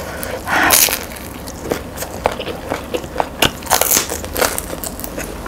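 A person biting into crusty bread filled with pork pâté: a loud crackling crunch of crust about half a second in, then chewing with many short, sharp mouth clicks.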